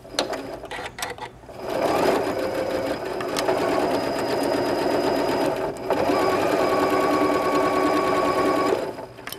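Janome sewing machine running a basting stitch through layered fabric. It sews for about four seconds, stops for a moment, then sews again for about three seconds. A few light clicks of fabric handling come before it starts.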